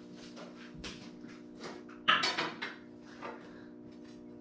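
Steel pieces clanking and clinking as a steel end cap is handled and fitted onto a steel truck side, with the loudest clatter about two seconds in, over a steady hum.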